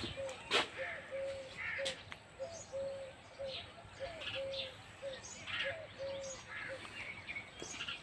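A dove cooing in a steady run of repeated low coos, with small birds chirping higher over it and one sharp tap about half a second in.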